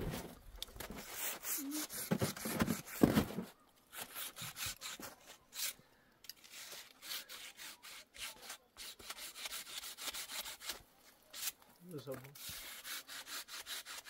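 Repeated scraping strokes, a few a second, coming in short runs with brief pauses between them.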